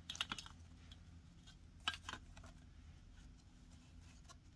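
Faint rustling and a few short soft clicks of a stack of paper banknotes being squared up and set into a clear acrylic holder, near the start and again about two seconds in.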